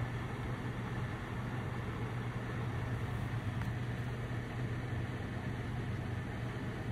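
A steady low machine hum with an even hiss over it.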